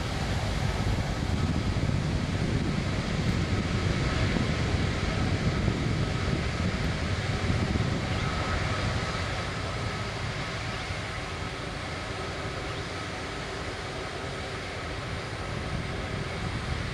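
Airbus A330-300's Rolls-Royce Trent 700 jet engines running at low thrust as the airliner taxis. A steady noise with a faint high whine, dipping slightly in the middle and swelling again near the end.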